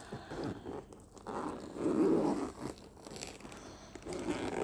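Cosmetics packaging and a makeup pouch being handled and opened: irregular rustling and crinkling, loudest about two seconds in.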